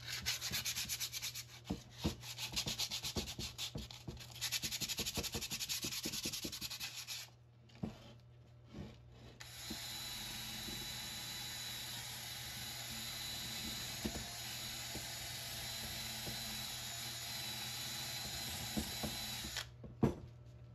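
Sandpaper scrubbing surface rust off a steel receiver hitch ball mount in fast back-and-forth strokes. After a short pause with a few knocks, a wire wheel in a cordless drill grinds steadily against the rusty steel, a rasping sound with a thin high whine, and stops about a second before the end.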